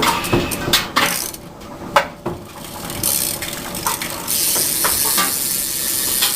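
Black Label rear hub on a BMX bike freewheeling, its pawls ratcheting. A few separate clicks and knocks come first, the sharpest about two seconds in. From about four seconds in the wheel spins fast and the clicking runs together into a steady buzz.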